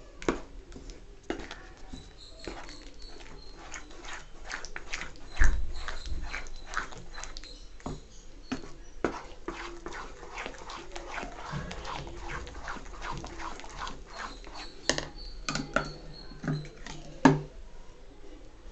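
A spoon stirring thick, sticky cornflour halwa in a pan with ghee: irregular scrapes and clicks against the pan with wet squelching of the paste. There is a louder knock about five seconds in and another near the end.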